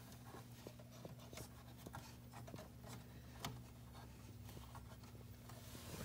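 Quiet handling noise: a few light clicks and scratches as fire alarm wires are handled at the panel's relay terminal block, over a faint steady low hum.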